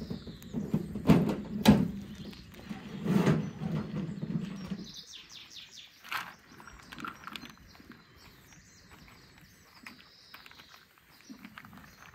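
Wheelbarrow rumbling as it is pushed, with a few loud knocks, for about five seconds; then it stops, and birds chirp over the faint rustle of a cloth sack of walnuts being untied.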